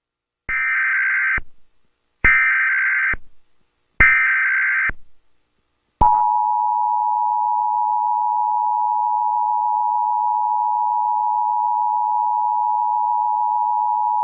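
Emergency Alert System test signal: three short bursts of SAME digital header data, each under a second with brief gaps, followed by the two-tone EAS attention signal, a steady tone held for about eight seconds and cut off at the end.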